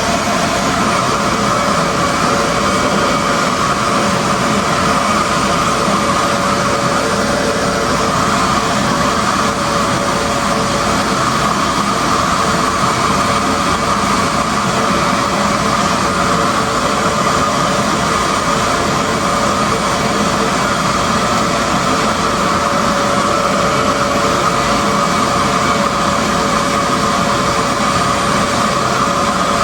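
RevAir reverse-air hair dryer running steadily: a loud, even rush of air over a constant motor whine, with no change in speed.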